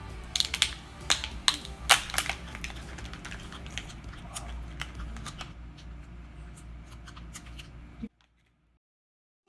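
Crinkling and clicking of surprise-egg packaging being handled and opened, a quick run of sharp crackles at first that thins out, over a steady low hum. The sound cuts off abruptly about eight seconds in.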